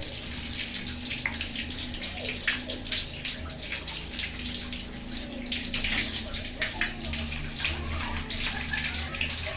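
Water running from a tap and splashing over hands being washed and rinsed.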